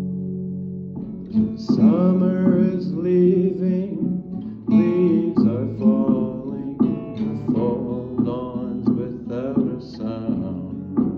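Acoustic guitar playing a song: a held chord dies away in the first second, then plucked notes and strums start about a second in, with a voice singing over them.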